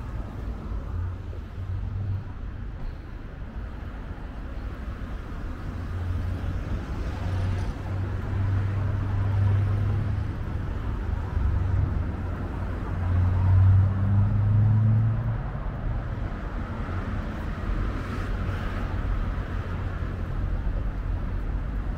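Road traffic on a city street: car engines and tyres making a low rumble that swells as vehicles pass, loudest a little past the middle, then eases off.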